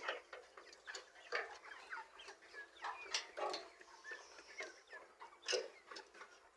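A flock of chickens clucking and calling, with many short calls overlapping.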